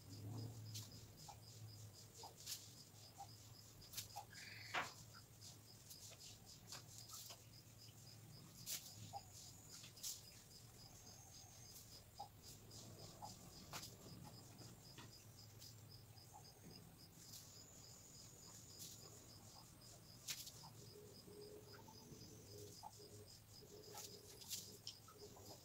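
Near silence: room tone with a faint, steady high-pitched chirping, like an insect, pulsing several times a second, and a few scattered soft clicks.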